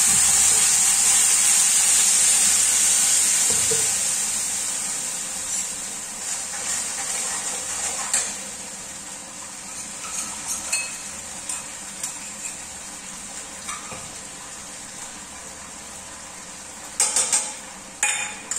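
Wet ground masala paste (onion, tomato, garlic and ginger) poured into hot oil in a kadhai, sizzling loudly as it hits, the hiss easing over the first few seconds. It then fries more quietly, with a spoon clinking and scraping against the pan, and a few sharp knocks near the end.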